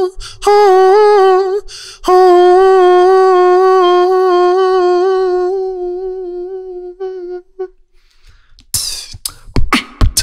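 Beatboxer humming into a microphone: a few short wavering notes, then one long held note that slowly fades away. Near the end, a few sharp clicks and swooping sounds as a beat starts up.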